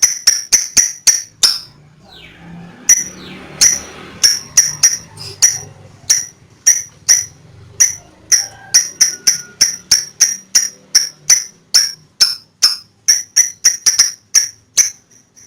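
Lovebird calling: a fast run of sharp, shrill chirps, about three a second, with a short break about two seconds in.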